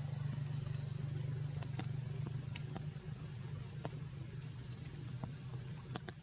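A steady low motor hum, like an engine running, with scattered sharp ticks over it.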